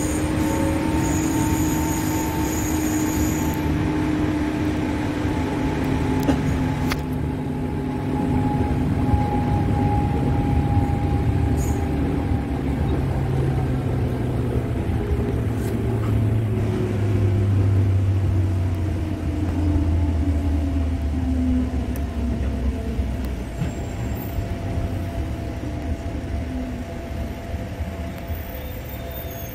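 Electric commuter train heard from inside its cab while running: a steady rumble of wheels on rail with a motor and gear hum whose pitch slowly falls as the train slows.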